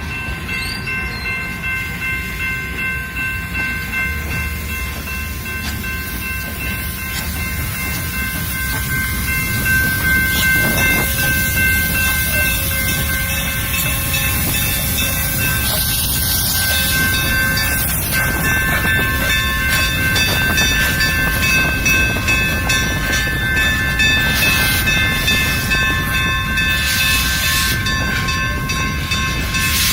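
Grand Canyon Railway passenger train rolling slowly into the station: a low rumble of the cars on the rails, with a steady, high metallic squeal of several tones from the running gear. It grows louder about a third of the way in.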